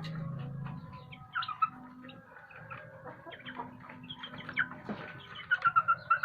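Village chickens clucking and calling in short notes, with a quick run of sharp calls near the end.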